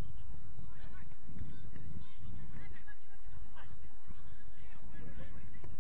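Football players shouting and calling out to each other during play: short scattered calls over a steady low rumble.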